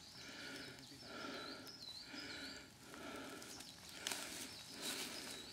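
Footsteps through forest leaf litter, one step about every second.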